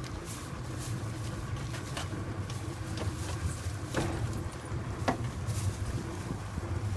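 Boat engine idling steadily, with a few sharp knocks and clicks from handling aboard.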